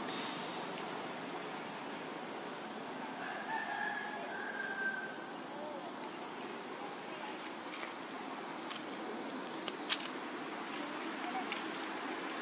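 Forest ambience with a steady high-pitched insect drone, and a faint rooster crowing about three to five seconds in. A single sharp click comes near the end.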